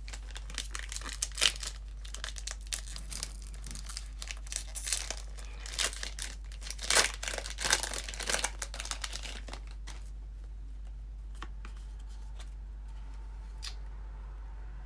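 A foil Pokémon booster pack wrapper being torn open and crinkled, a dense run of crackling for about nine seconds, then a few lighter clicks and rustles as the cards are handled.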